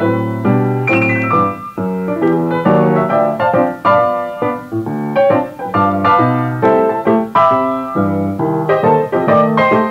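Easy-listening piano music: a quick run of struck notes, several a second, over held low chords.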